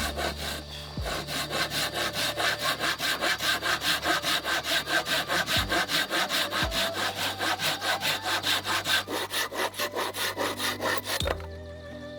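Hand saw cutting through wood in rapid, even strokes, about four to five a second, which stop abruptly near the end.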